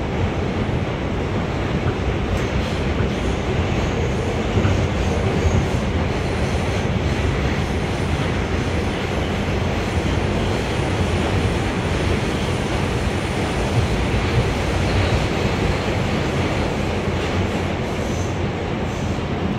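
Inside an R179 New York subway car running between stations: a steady rumble of wheels on rail with car noise.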